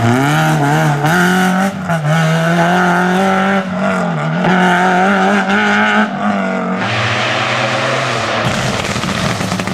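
Renault Clio II rally car's engine held at high revs through the bends, with brief dips in pitch as the driver lifts or changes gear. Near the end the note drops lower and fades as the car drives away.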